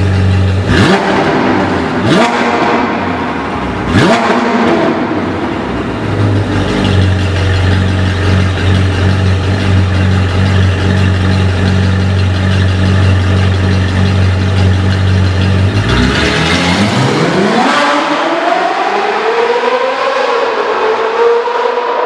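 Ferrari 458 Spider's naturally aspirated 4.5-litre V8 through a titanium aftermarket exhaust: three quick revs in the first few seconds, then a steady run, then a long acceleration with the pitch climbing, dipping at a gear change and climbing again.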